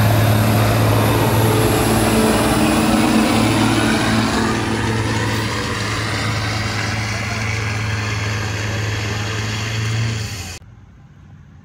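Semi truck's diesel engine pulling a sled at full load, a steady deep drone with a thin high whistle above it, easing a little about halfway as the truck gets farther down the track. It cuts off suddenly near the end.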